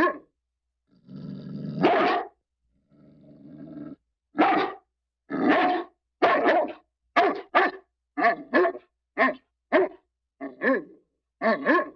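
Dog barking and growling: a bark, a low growl that rises into a bark, a second low growl, then a quick run of about a dozen sharp barks.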